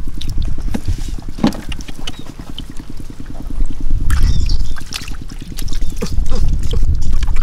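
Water splashing and sloshing in shallow, muddy water, with many short irregular splashes over steady low-pitched noise.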